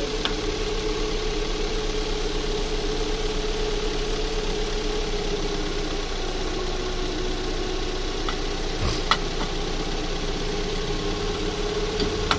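Hyundai Elantra petrol engine idling steadily with its A/C compressor engaged and running as refrigerant is charged in: the compressor has cut in, a sign that the system is working after its control valve was replaced. A light click about nine seconds in.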